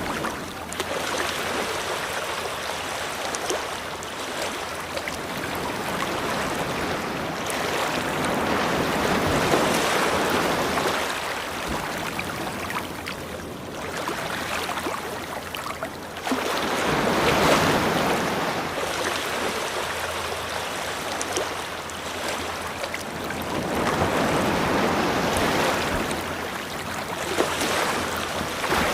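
Ocean surf washing onto a shore: a steady rush of water that swells and eases in slow surges, about four waves in all, one breaking sharply just past halfway.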